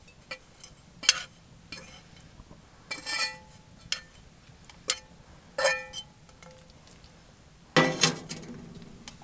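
Metal cooking utensils clinking and scraping against pots and a frying pan as food is dished up: a string of separate clinks, with the loudest about eight seconds in ringing on briefly.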